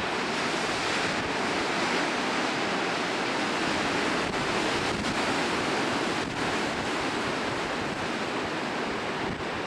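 Steady rush of ocean surf breaking against the rocks below, mixed with wind on the microphone.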